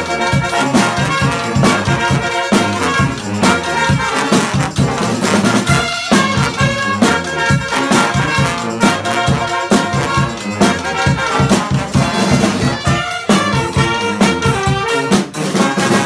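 A brass street band playing live: saxophones, trumpets, trombone and sousaphone together over a steady drum beat.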